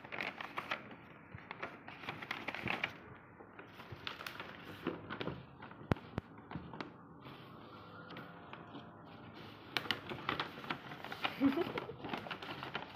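Wrapping paper rustling and crinkling as it is folded around a box and smoothed flat by hand, with irregular crackles and a single sharp click about six seconds in.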